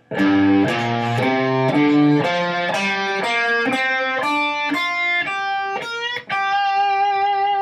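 Guitar playing the G minor pentatonic scale upward, one note at a time in the common first 'home base' box position, ending on a held high note.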